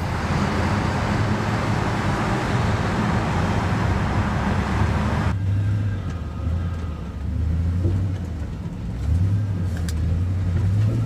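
Car driving in slow traffic, heard from inside the cabin: a low steady engine and road hum with loud tyre and road hiss while in a road tunnel. The hiss cuts off abruptly about five seconds in, leaving the low hum.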